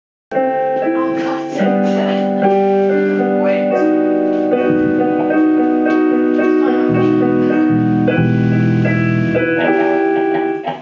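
Electric stage keyboard playing held chords that change every second or so. Deeper low notes join about seven seconds in.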